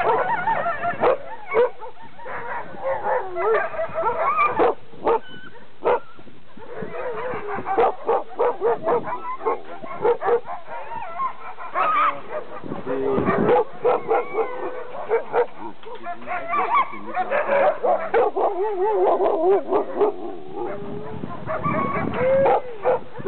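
A large pack of chained sled dogs (huskies) barking, yipping and howling all at once in a continuous chorus, with sharp single barks standing out and wavering, drawn-out howls among them.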